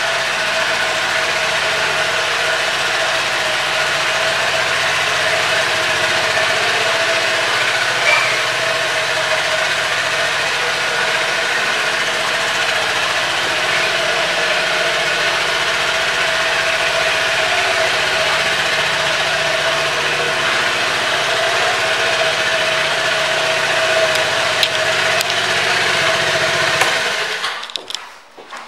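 A 2005 Honda Helix 250 scooter's single-cylinder four-stroke engine idling steadily, then shutting off near the end.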